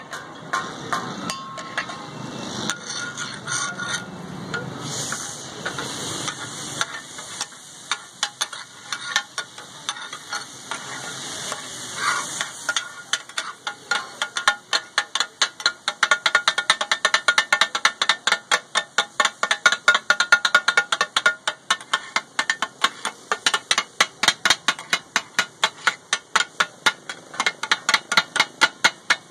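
Two metal spatulas striking and scraping on a large flat iron griddle (tawa) as fish katakut is chopped and fried, with sizzling underneath. The strikes are scattered at first, then about halfway through settle into a fast, steady clatter of roughly three to four strikes a second.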